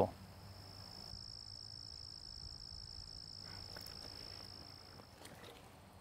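Faint, steady, high-pitched cricket trill over quiet outdoor ambience, stopping about five seconds in; a few faint rustles follow near the end.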